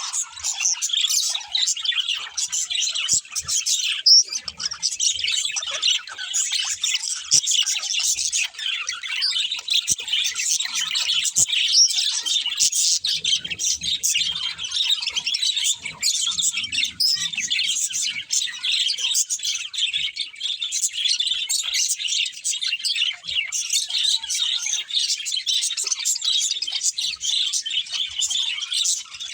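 A flock of budgerigars chirping and warbling continuously, a dense chatter of many quick overlapping chirps.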